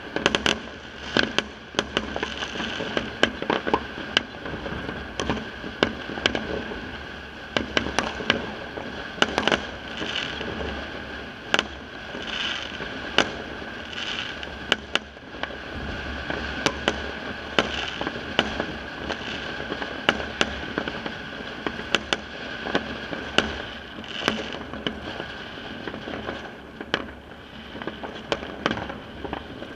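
Fireworks and firecrackers going off across a neighbourhood: irregular sharp bangs, at times several a second, over a continuous background of more distant popping and crackling.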